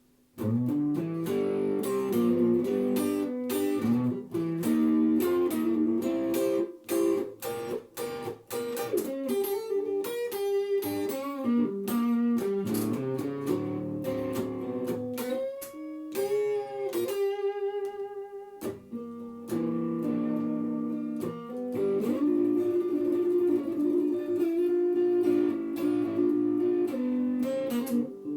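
Guitar playing a slow blues lead with bent notes, no singing.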